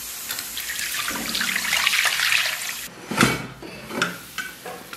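Water running in a steady rush for about three seconds, then stopping abruptly. After it come a sharp metal clunk and a couple of lighter knocks as the lid of an aluminium pressure cooker is lifted off.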